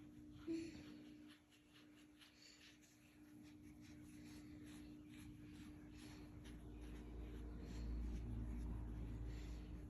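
A Doberman's quiet, breathy wheeze, the purr-like sound she makes, as a low rumble that builds through the second half and is loudest near the end. A steady low hum runs underneath.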